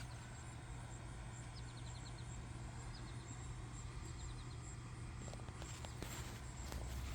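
Outdoor background with a steady low hum, a bird giving short runs of quick high chirps a few times, and scattered light taps near the end.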